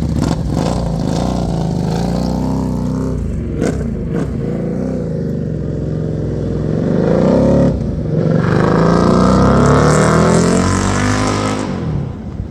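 2024 Buell Hammerhead 1190's V-twin engine with a Kaplan Cycles stage 1 kit, revving up repeatedly with its pitch climbing. There is a short break just before 8 seconds, then a louder, longer climb, and the engine falls off near the end.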